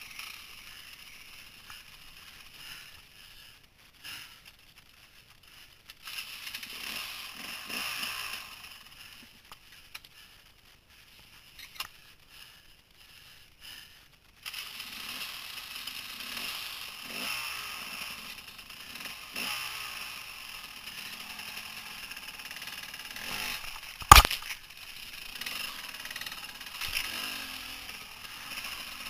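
Dirt bike engine running unevenly, rising and easing off, dropping away for several seconds in the middle, with one sharp knock about 24 seconds in.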